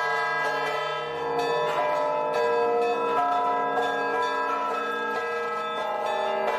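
Large church bells rung by hand in a belfry, heard close up from beneath the bells: a run of irregular clapper strikes whose ringing overlaps into a dense, sustained peal.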